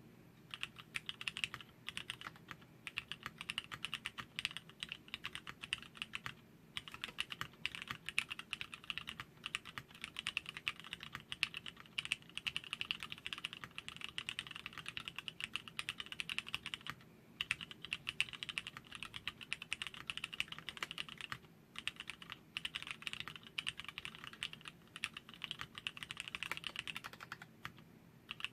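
Continuous typing on a D460-GT wooden-case custom mechanical keyboard with lubed, PCB-mounted Cherry MX Black linear switches on 60 g springs: a dense run of rapid key strokes broken by a few short pauses.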